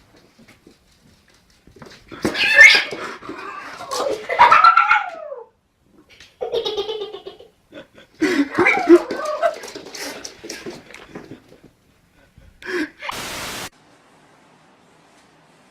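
A cat yowling in three drawn-out bouts whose pitch wavers and slides, followed by a brief burst of noise near the end.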